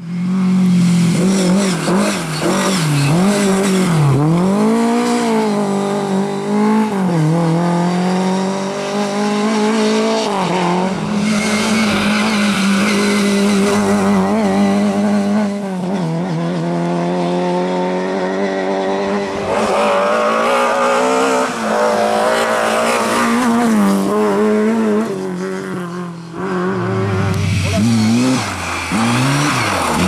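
Lada 2107 rally car's four-cylinder engine driven hard. The revs climb and drop sharply again and again through gear changes and lifts for corners, with steadier full-throttle stretches in between.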